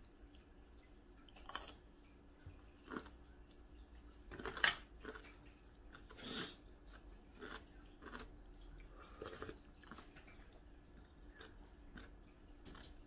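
Quiet eating sounds: chewing, with scattered light clicks and scrapes of metal utensils against a ceramic bowl; the loudest click comes a little after halfway through.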